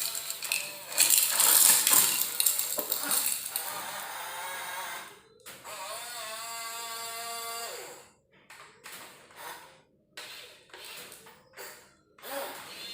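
Small electric motors and plastic gearboxes of radio-controlled construction models whirring in short bursts. One steady whine spins up, holds for about two seconds, then winds down, followed by several brief stop-start runs.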